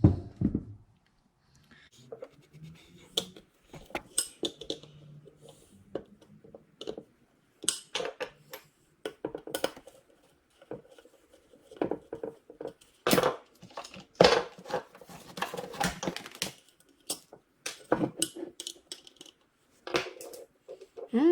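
Irregular metallic clinks, knocks and scraping from hand tools and small metal alternator parts being handled on a workbench, with a longer stretch of scraping about two-thirds of the way through.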